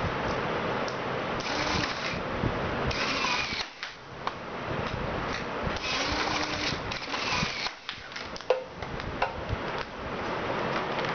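Small DC motor of a homemade automatic ping-pong-ball crossbow mechanism running, whirring louder in several spells of a second or so, with a few sharp clicks of the mechanism in between.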